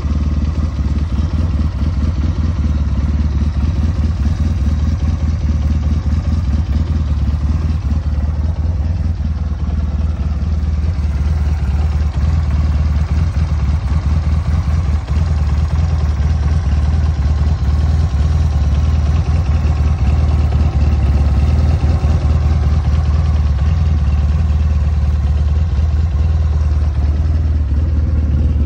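SMC Quadzilla CBT-250 quad's 250 cc engine idling steadily, with a dense, even low pulsing and a light mechanical clatter.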